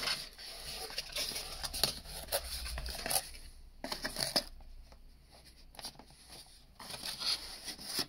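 Cardboard packaging box being opened by hand: flaps scraping and rustling in irregular bursts, busiest in the first three seconds, with a couple more bursts later on.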